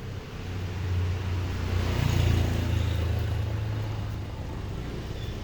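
Yamaha RX-King motorcycle's two-stroke single-cylinder engine running. It grows louder over the first two seconds, then slowly eases off.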